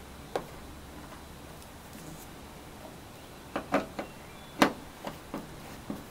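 Screwdriver turning the Phillips screw that holds a taillight housing down, giving a few light clicks and ticks as the screw is tightened, the sharpest about four and a half seconds in.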